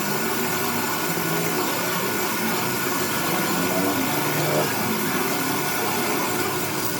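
Steady machine whir with a hiss.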